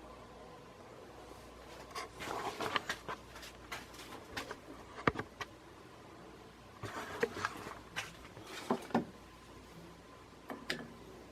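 Handling noises: clusters of clicks, taps and rustles, about two seconds in and again about seven seconds in, over a faint steady hum.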